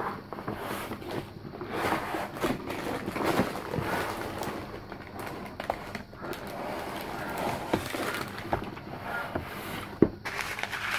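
Cardboard laptop box being opened and handled: flaps scraping and rubbing, with rustling of the paper and plastic packaging inside and scattered small knocks, and one sharp click about ten seconds in.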